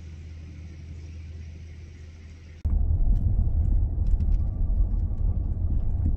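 A quiet, steady low hum, then about two and a half seconds in a sudden cut to the much louder low rumble of a Dodge Grand Caravan minivan driving on an unpaved road, heard inside the cabin, with scattered light ticks.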